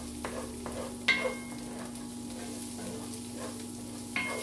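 Chopped onions and garlic sizzling in olive oil in a cast iron skillet, stirred with a wooden spoon. The spoon knocks against the pan about a second in and again near the end, each knock ringing briefly.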